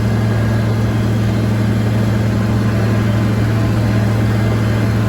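Farmall 1206 tractor's turbocharged six-cylinder diesel engine running steadily while pulling a bush hog rotary mower, with a deep even hum.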